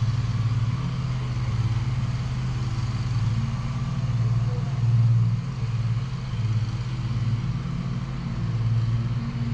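An engine running steadily with a low, even hum, swelling a little in level about halfway through.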